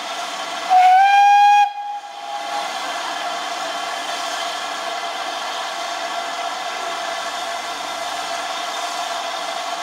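GWR 4300 Class 2-6-0 steam locomotive No. 5322 sounds one short blast on its whistle, about a second long and starting with a slight rise in pitch, as a departure signal. A steady hiss of escaping steam, from the open cylinder drain cocks, goes on underneath.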